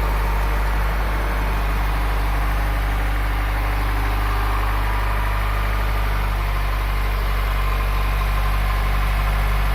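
Honda Prelude's four-cylinder engine idling steadily, freshly restarted after six months and warming up, with its ignition timing not yet set after a new distributor.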